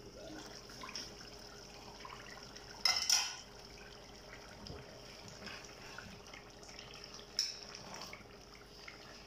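A metal pot lid is lifted off and set down with a clatter about three seconds in, then a spoon stirs a thick turnip and mutton curry in an aluminium pot, with a softer knock of the spoon against the pot later on. A faint steady hiss runs underneath.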